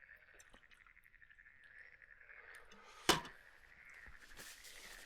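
Chorus of frogs croaking, a steady fast-pulsing trill. A single sharp knock about three seconds in is the loudest sound, and a short rustle follows near the end.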